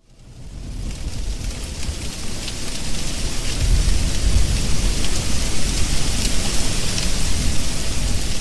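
Heavy rain with a deep rumble of thunder underneath, fading in from silence over about the first second and then running steady.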